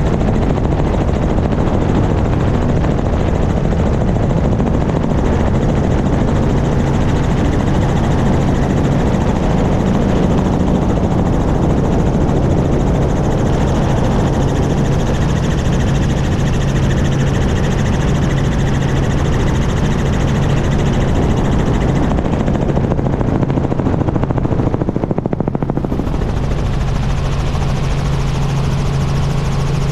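Small helicopter in flight, heard close up from outside the fuselage: its rotor and engine make a steady low hum over a constant rush of air.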